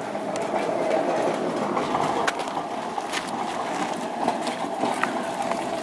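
Bicycle rolling over a paved path: a steady tyre rumble with scattered rattling clicks.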